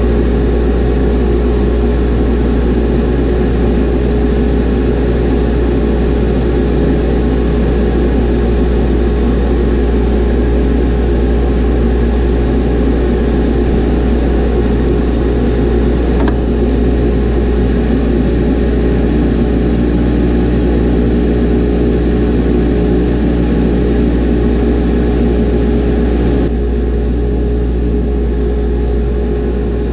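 Paint booth exhaust fan running steadily, a loud even drone with a low hum, dropping slightly in level near the end.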